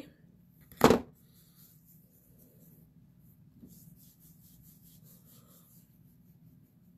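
A single loud knock about a second in, then faint soft rubbing of hands spreading primer over the skin of the face.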